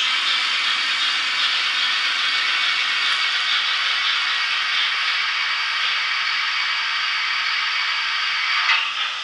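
Sound decoder in an HO-scale DRG Class 44 steam locomotive model playing a steady steam hiss through its small onboard speaker. A short burst comes near the end, after which the hiss drops a little.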